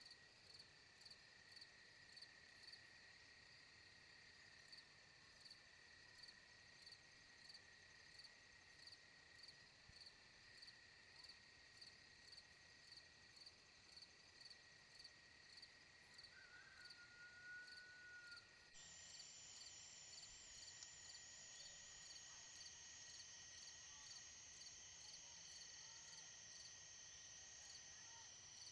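Faint chorus of insects: steady high-pitched trilling with a regular pulse about twice a second. A brief whistled note sounds a little past the middle, and soon after a higher steady trill joins in.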